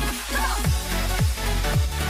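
Background electronic dance music with a deep, thudding beat about twice a second, which drops out briefly just after the start.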